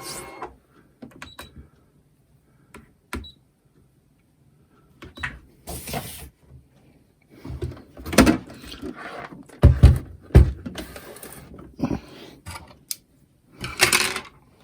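Handling noises of paper and card being fetched and moved: scattered clicks and rustles, with a few dull thumps near the middle.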